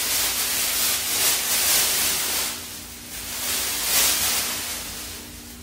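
Crinkling and rustling of a mylar emergency thermal blanket being shaken out and wrapped around the body, in irregular surges that fade toward the end.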